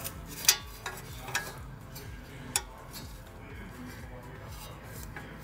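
Open-end wrenches clinking against a steel brake-line fitting and strut bracket as the brake line is loosened from the strut, a 17 mm wrench holding the back side and an 11 mm on the line nut. There are a few sharp metal clicks, the loudest about half a second in and another about two and a half seconds in, over a steady low hum.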